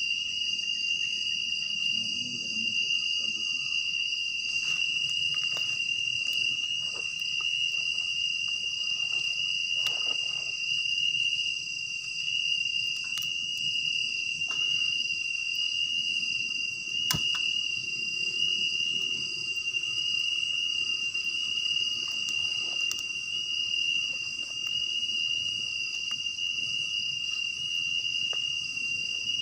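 Night insects in the forest, crickets among them, keep up one continuous, steady high-pitched trilling chorus. Faint scattered clicks and rustles sit underneath it.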